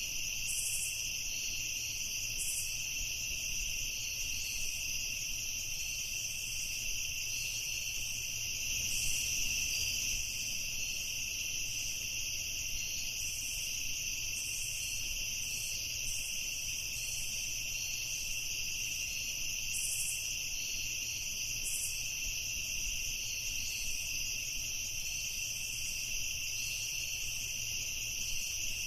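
Night chorus of crickets trilling steadily and without pause, with short higher chirps scattered throughout.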